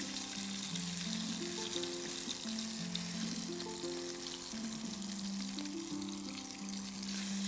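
Fish pieces frying in a pan of hot oil, a steady sizzle, under soft background music of slow held notes.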